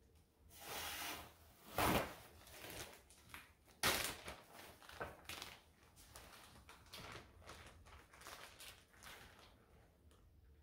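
Handling noise from a plastic sous vide bag and metal kitchen tongs: rustling and crinkling with a few sharp clacks, the loudest about two and four seconds in.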